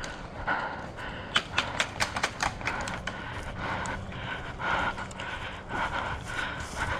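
Irregular sharp pops of airsoft guns firing, a quick cluster between one and three seconds in and scattered shots after, over rustling movement.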